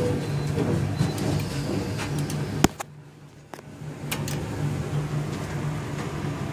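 Elevator doors sliding open over the steady hum of the cab's ventilation fan, with one sharp click about two and a half seconds in and a short lull after it.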